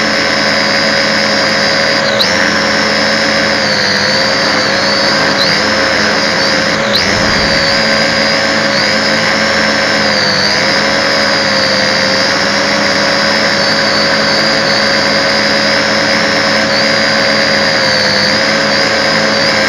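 MJX X600 hexacopter's motors and propellers whining steadily in hover, heard from the drone's own camera. The pitch wavers slightly with throttle corrections, dipping briefly about two seconds and seven seconds in.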